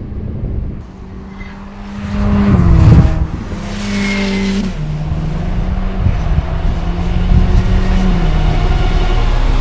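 Ferrari F8 Tributo's 3.9-litre twin-turbo V8 running hard at speed, with the car passing close and loudest about three seconds in.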